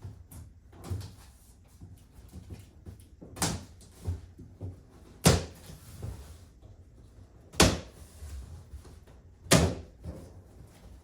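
A bicycle's cardboard shipping box and packaging being handled: low rustling with smaller knocks and four sharp, loud knocks about two seconds apart.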